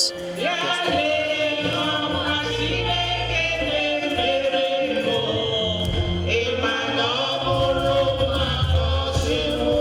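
Voices singing gospel music together in chorus, with a low bass accompaniment coming in after a couple of seconds.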